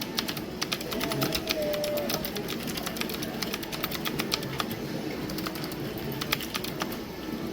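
Typing on an ABKO Hacker K9100 ARC keyboard: quick, uneven key clicks, several a second, over a low background murmur.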